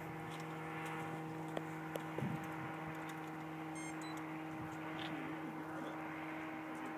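A motor droning at a steady, unchanging pitch, with a few faint clicks about two seconds in.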